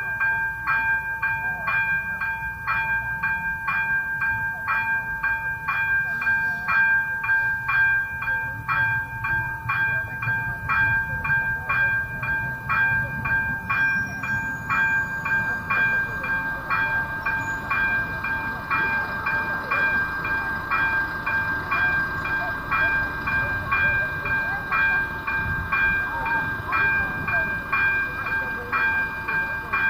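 Czech level-crossing warning bell ringing steadily in an even, rapid ding, about three strikes a second, to warn of an approaching train, with a low rumble underneath.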